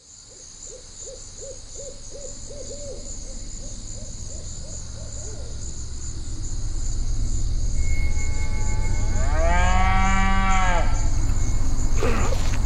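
Night ambience: insects chirping steadily, with a run of short hooting calls in the first few seconds and a low rumble that swells louder. About nine seconds in, a long, low moaning call rises and falls over roughly two seconds.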